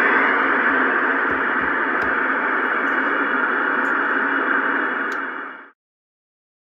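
Steady hiss of static from an Alba 40-channel CB base station's speaker, its squelch open with no station coming through on the channel. The hiss cuts off suddenly near the end.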